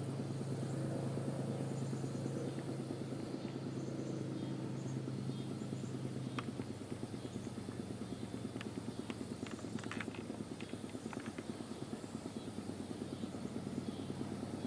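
Steady low engine drone with a fast pulsing flutter, fading a little after a few seconds, with a few faint sharp clicks in the second half.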